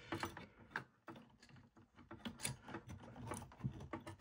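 Faint, irregular small clicks and taps of a bracket and its wiring being handled inside an opened cassette deck's tape transport.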